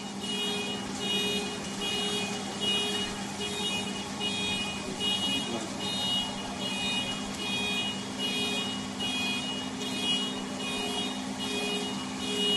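A car alarm sounding a rapid, repeating beep, a bit under two pulses a second, over a steady hiss and a low hum.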